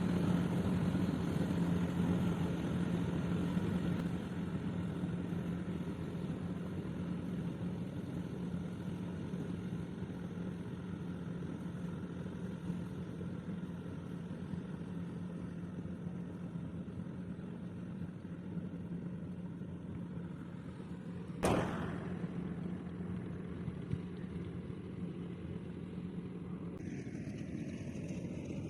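Rice harvester engine running steadily with an even hum, broken once about three-quarters of the way through by a single sharp knock.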